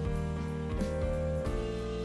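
Instrumental background music: held chords that change a couple of times, over a light, even beat.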